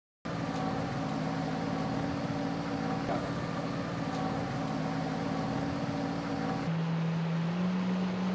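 A watercraft engine running steadily, starting abruptly; about two-thirds of the way in the sound changes and its pitch steps up slightly.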